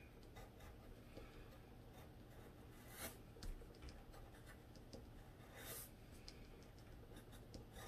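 Faint pencil strokes scratching on drawing paper as a twig is quickly sketched in short lines, with slightly stronger scratches about three seconds in and again near six seconds.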